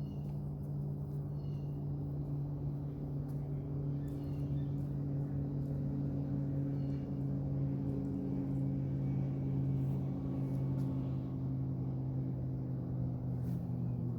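A steady low motor hum, unchanging throughout, with a few faint ticks over it.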